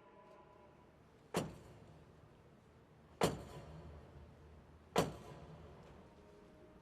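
Three heavy knocks of a crosier on the great wooden doors of Notre-Dame de Paris, about two seconds apart, each followed by a short echo: the ritual knocking that asks for the cathedral doors to be opened.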